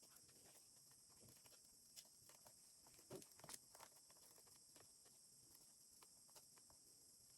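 Near silence: a faint steady hiss with scattered soft clicks and taps, a small cluster of them about halfway through.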